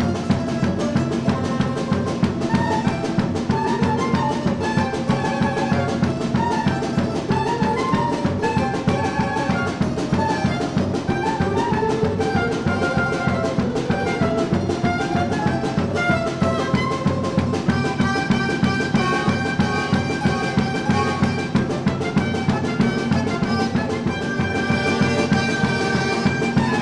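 Folk instrument orchestra playing: strummed lutes, flute and double bass, with a fast, even strummed pulse under the melody.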